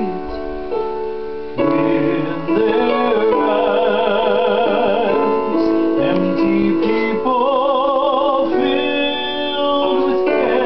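Piano-led gospel accompaniment track with a man singing along, his held notes wavering with vibrato; the accompaniment fills out and gets louder about a second and a half in.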